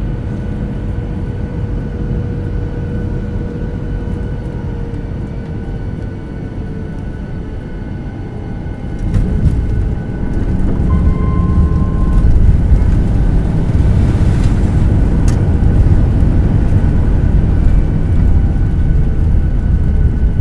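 Cabin noise of a Boeing 737-800 landing, heard from a window seat over the wing: a steady engine hum on short final. About nine seconds in the wheels touch down smoothly, with hardly any jolt. From then on a louder low rumble builds as the airliner rolls out along the runway.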